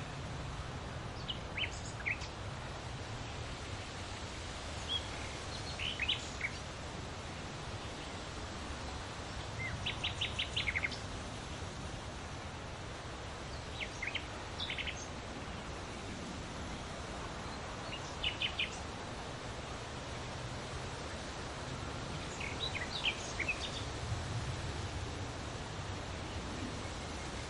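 Wind in leafy foliage makes a steady rustling hiss with a low rumble. Birds chirp over it in short bursts about six times, one of them a quick run of notes near the middle.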